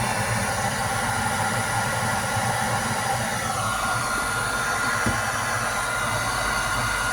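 Hand-held hair dryer running steadily, blowing hot air through a PVC pipe into a freezer to melt the frost off an iced-up ice maker. A steady high whistle joins about halfway through.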